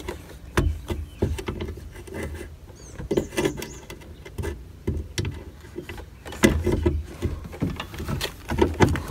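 Irregular knocks, clicks and thuds of a replacement tow mirror being handled and fitted against a pickup truck's door, its mounting studs worked through the holes in the door, with a louder run of knocks about two-thirds of the way through.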